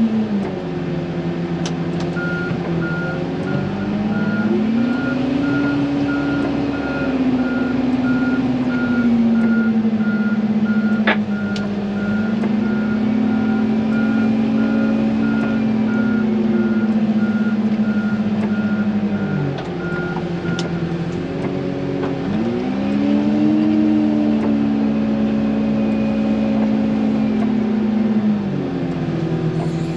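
XCMG wheel loader's diesel engine revving up and down repeatedly as it pushes and backs up with a snow plow, with its reversing alarm beeping steadily about twice a second until about two-thirds of the way through. A single sharp knock sounds about a third of the way in.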